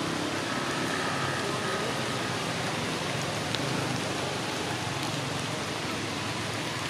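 A steady, even hiss of outdoor background noise with no distinct events, and a faint thin tone in the first couple of seconds.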